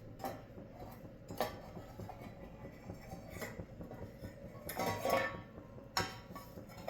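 Kitchen dishes and utensils clinking and knocking now and then: a few separate sharp clinks over a steady low hum.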